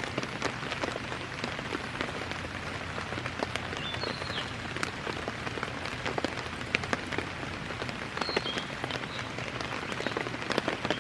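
Steady rain falling, with the sharp ticks of single drops scattered through a steady patter.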